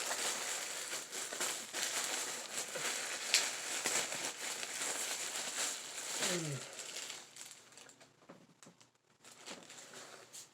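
Packaging being crinkled and rustled by hand as a T-shirt is unpacked: a continuous crackle of small clicks that fades to faint, scattered rustles for the last few seconds.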